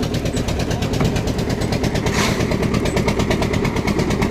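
Engine of a lift concrete mixer machine running steadily with a rapid, even chugging. There is a brief rush of hiss about two seconds in.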